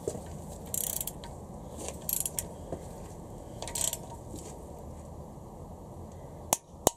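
Socket and torque wrench handled on the ARP head-stud nuts of a Honda B18C4 cylinder head: short metallic rattles and scrapes as the socket is moved and fitted to the next stud, then two sharp metallic clicks in quick succession near the end.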